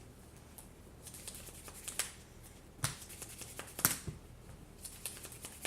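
Trading cards being drawn, slid and laid down on a table: soft brushing and scattered light clicks, with two sharper taps about three and four seconds in.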